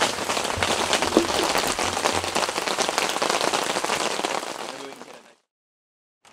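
Steady heavy rain pattering on surfaces, a dense hiss of countless drops that fades out about five seconds in.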